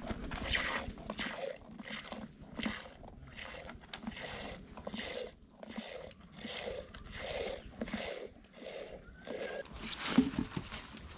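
Goat being hand-milked into a glass jar: streams of milk squirting into the jar in a steady rhythm, about one and a half a second. A knock near the end.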